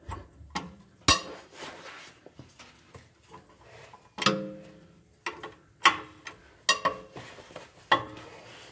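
Socket wrench on the 17 mm brake caliper bracket bolts as they are loosened: about five sharp metallic clinks and clanks at irregular intervals, one about four seconds in ringing briefly.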